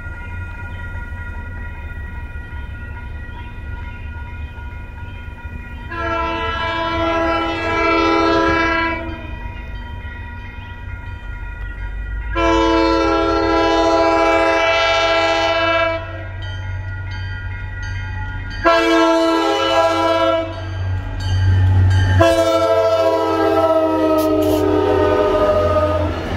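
MBTA commuter rail diesel locomotive approaching a grade crossing and sounding its multi-note chime horn in the crossing pattern: long, long, short, long. A low engine rumble runs underneath. The crossing signal bell rings steadily throughout.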